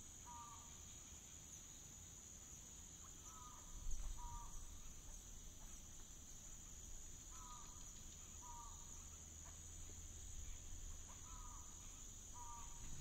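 Faint field ambience of crickets: a steady high chirring, with short chirps in pairs every few seconds. A brief low thump comes just before four seconds in.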